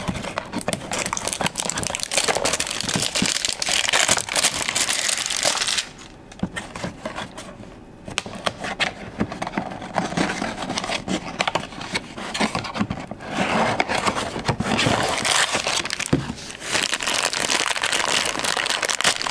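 A cardboard blind box and the black foil bag inside it being handled and opened, with crinkling and crackling throughout. There is a quieter pause about six seconds in.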